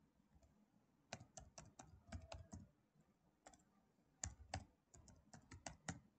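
Faint computer keyboard typing. Keys clack in two quick runs, the first starting about a second in and the second after a short pause, as an email address is typed into a login form.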